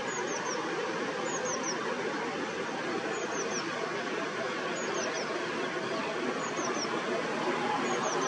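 Black redstart calling: short, high thin notes in groups of two or three, repeated about every one and a half to two seconds, over a steady background noise.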